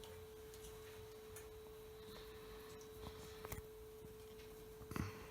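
A faint, steady tone held at one pitch throughout, with a few light clicks about halfway through and a sharper knock near the end.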